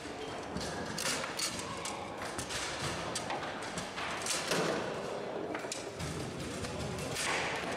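A Bonzini foosball table in play: irregular sharp knocks and clacks as the ball is struck by the men and the rods are slammed.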